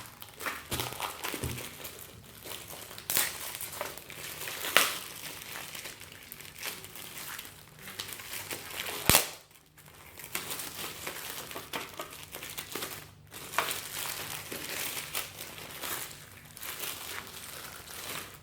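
Packaging crinkling and rustling as items are unwrapped and pulled from a box, with one sharp knock about nine seconds in.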